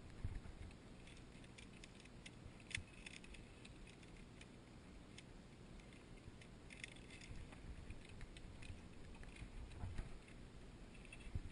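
Faint metallic clicking and light jingling of via ferrata gear: lanyard carabiners and fittings knocking and sliding along the steel safety cable, with scuffs against rock. The ticks come in small clusters over a low, steady rumble.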